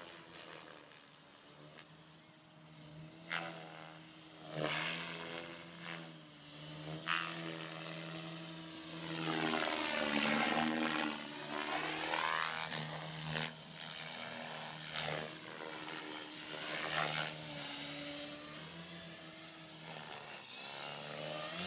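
Electric RC helicopter in flight: a steady rotor-and-motor hum with a thin high motor whine, growing loudest and shifting in pitch as it passes close about halfway through, with short louder bursts now and then as it manoeuvres.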